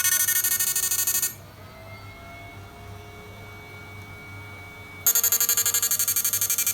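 Electric fishing machine's IGBT inverter running under load, a high, many-toned buzz pulsing several times a second. It cuts off about a second in, leaving a faint hum, and comes back at full strength near the end.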